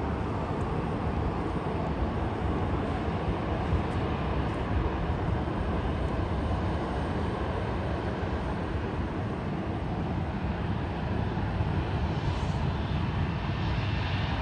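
Distant jet engine noise from an Airbus A220-300's Pratt & Whitney geared turbofans at takeoff power: a steady low rumble, with a little more hiss near the end.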